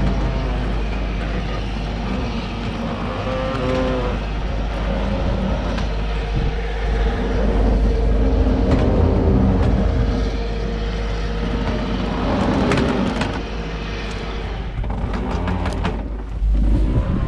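Low, steady engine rumble with wind on the microphone; a steady droning tone holds for several seconds in the middle, and a few sharp knocks come near the end.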